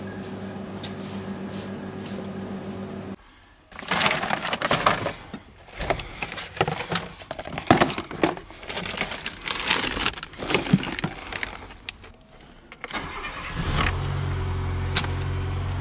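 A steady hum at first. Then comes a stretch of keys jangling and clicks and rustles of handling inside a car. Near the end, a Fiat Panda 900 i.e. four-cylinder engine starts and settles into a steady idle.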